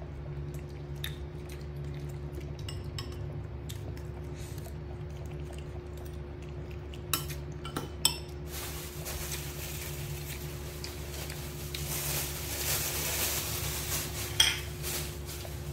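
Steady low hum with a few light clicks and knocks, and a soft hiss through the second half.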